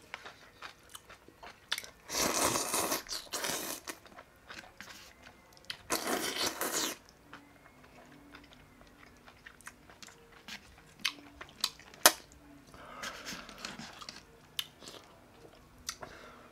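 A person slurping ramen noodles in two long noisy pulls, then chewing with small wet clicks and one sharp click.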